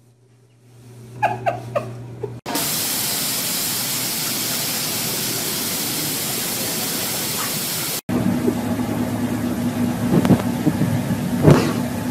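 A few light taps, then a loud steady hiss of spraying water for about five seconds that cuts off suddenly. A car engine idling with a steady hum follows, with a few knocks near the end.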